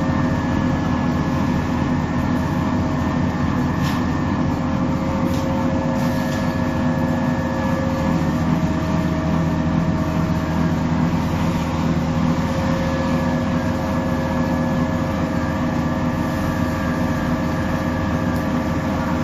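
Oil press machine running steadily for sesame and rapeseed: a continuous mechanical drone with a steady hum, and a few faint clicks around four to six seconds in.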